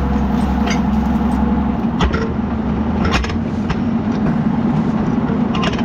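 A vehicle engine running steadily under a low drone, with scattered clicks and rattles. The deepest part of the drone drops a little about two seconds in.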